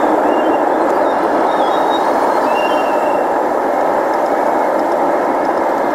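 Steady, loud rushing drone of an airliner's engines and airflow, heard from inside the passenger cabin on the descent to land.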